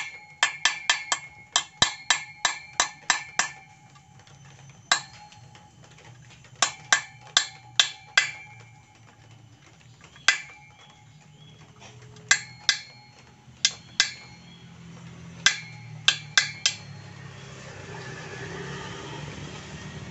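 Light metallic taps of a small hammer on a homemade punch set against a broken 6 mm bolt stub in an aluminium motorcycle crankcase, each tap ringing briefly. Quick runs of taps alternate with single taps, spreading out and stopping a few seconds before the end. The tapping is working the broken bolt loose, which has just begun to turn.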